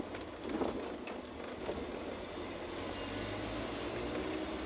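Cab of a moving 1997 Ford Ranger: steady drivetrain and road hum from the freshly rebuilt rear end, with a faint whine coming in over the second half. The owner says such a whine can come from the ring and pinion gears not meshing perfectly.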